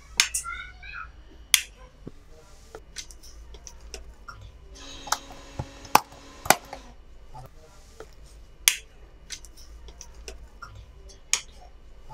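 Wall switches on a switchboard being flicked on and off: a string of about eight sharp clicks at irregular intervals. The switch is being tested for a fault after a fan stopped running.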